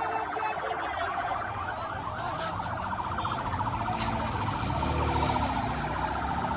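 A vehicle siren sounding steadily in a fast, even pulse, with a crowd's voices over it.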